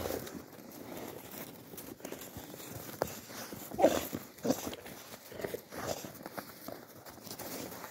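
Alabai puppies giving several short cries, bunched together from about four to six seconds in, the loudest near four seconds, over the crunch of paws and footsteps in snow.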